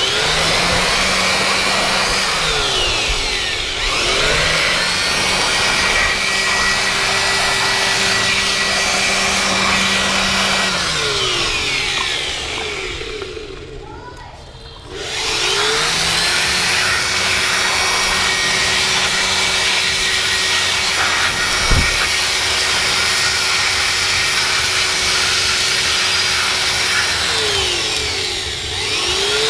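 Hair dryer blowing steadily while toy cars are dried, its pitch shifting now and then. About halfway through it winds down and stops, then starts up again a second or so later. There is a single short knock about two-thirds of the way through.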